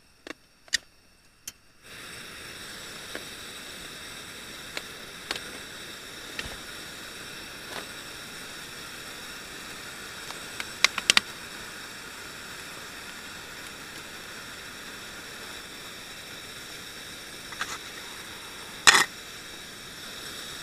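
Three sharp clicks, then a camping gas stove's burner comes on abruptly and runs with a steady hiss under a cookpot. Scattered light ticks and one louder knock near the end sound over the hiss.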